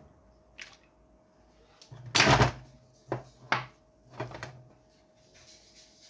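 Kitchen handling noises: a series of bumps and knocks as a sauce bottle is handled and set aside, the loudest a thud about two seconds in, followed by two sharper knocks and a softer cluster.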